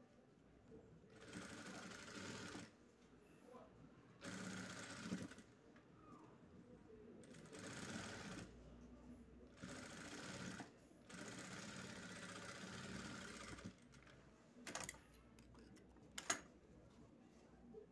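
Electric sewing machine stitching elastic onto a knit trouser hem in about five short runs of one to three seconds, stopping and starting between them. Two sharp clicks come near the end.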